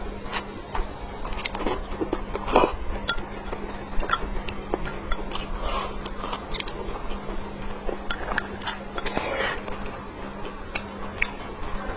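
Close-miked eating: irregular chewing and mouth sounds, with utensils clicking and clinking against a bowl, over a faint steady hum.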